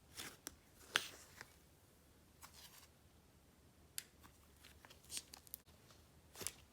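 Slime being poked, pressed and stretched by hand, giving scattered soft crackles and clicks at irregular times.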